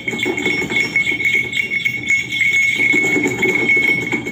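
Horse-cart sound: harness bells jingling in a steady rhythm with the clip-clop of a trotting horse's hooves.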